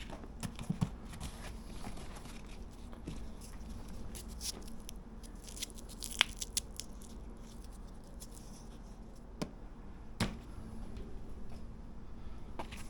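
Scattered faint clicks and rustling from hands working the straps, buckles and fittings of motorcycle soft luggage, with a sharper click about six seconds in and another about ten seconds in.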